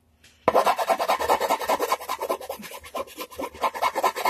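Hand file scraping rapid back-and-forth strokes along the edge of a painted wooden guitar body, several strokes a second, starting about half a second in. It is flattening the squared-off body edge, cutting through the paint into the wood.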